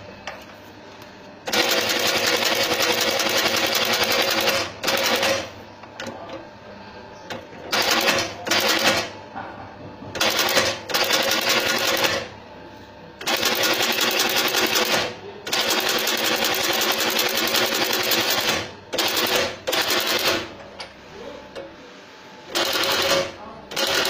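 Shoe-repair outsole stitching machine sewing through the edge of a rubber sole in stop-start runs of fast, even stitching, up to about three seconds each. A quieter steady hum fills the pauses between runs.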